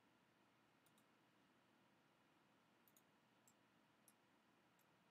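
Faint computer mouse clicks over near-silent room tone: about seven short clicks scattered through, two of them quick double clicks.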